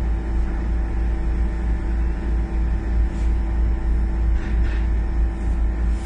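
Bus engine idling: a steady low rumble with a constant hum over it, with a couple of faint brief hisses in the second half.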